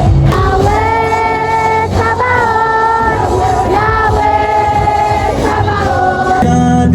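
A song: a singing voice holding long, gently sliding notes over a heavy bass, with the bass and chords changing about six and a half seconds in.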